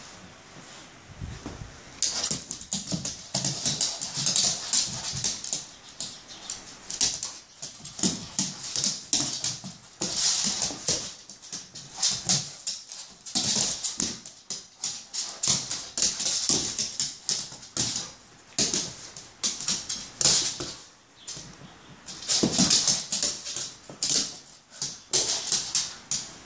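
A dog's claws scrabbling and clicking on a hardwood floor in quick bursts as it darts and pounces after a laser dot, with brief lulls between the rushes.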